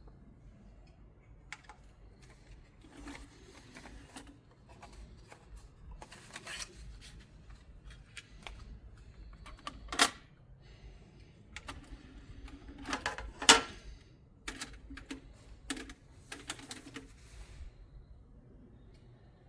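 Irregular mechanical clicks and clunks of equipment being handled, with two louder sharp clunks, one about ten seconds in and one a few seconds later.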